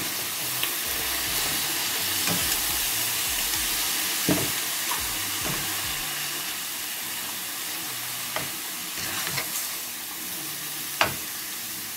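Diced mixed lamb offal (lung, liver, heart) sizzling in a hot dry frying pan with no oil, stirred with a wooden spatula that knocks and scrapes against the pan now and then.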